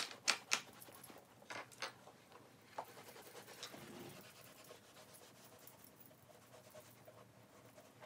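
Leather tote being rubbed with conditioner and handled: a few sharp clicks and knocks in the first three seconds, then faint soft rubbing and rustling of the leather.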